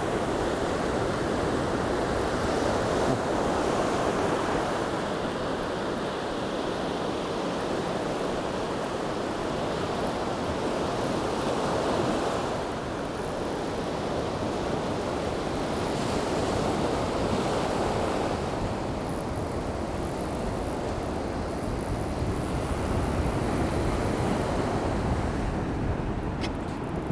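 Sea surf breaking and washing up a sandy beach, a steady rush that swells and eases every few seconds.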